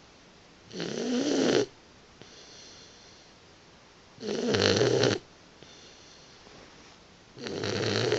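Boxer puppy snoring in its sleep: three loud, rasping snores about three seconds apart, each lasting about a second, with softer breaths between them.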